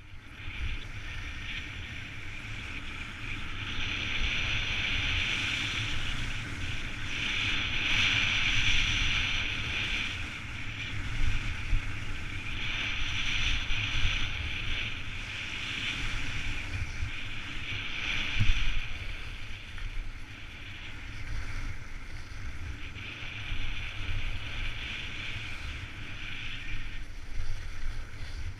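Skis sliding and carving on packed, groomed snow: a continuous scraping hiss that swells and fades every few seconds, over a low rumble of wind on the microphone.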